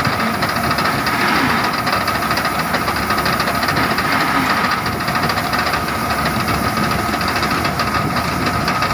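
Preet combine harvester running steadily at work, a constant engine drone with a high whine, as its unloading auger pours basmati paddy into a trolley with a grainy rushing hiss.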